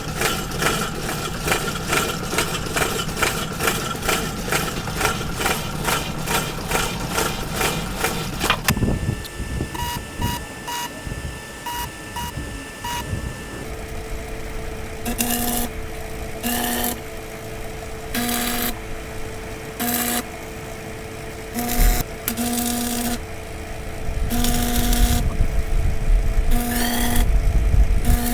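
Workshop machine sounds. First comes an even, fast rhythmic clatter, about two and a half strokes a second, for roughly nine seconds. Then a machine gives several short beeps over a held tone. From about fourteen seconds in, a steady electrical hum runs while an arc welder welds in a series of short bursts.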